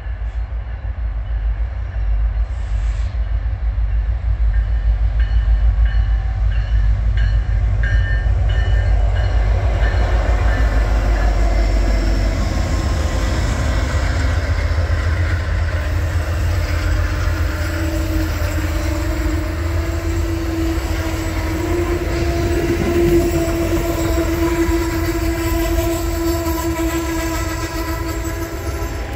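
Amtrak passenger train passing close by. Its diesel locomotives, one of them an Amtrak Genesis, go by with a loud low rumble for the first dozen seconds, then bilevel Superliner cars roll past with wheel and rail noise. A train horn sounds a long steady chord through the later part.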